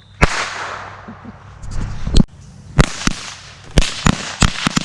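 Small consumer fireworks going off: a sharp crack followed by a hiss that fades over about two seconds, a louder bang, then a run of sharp pops that comes quicker toward the end.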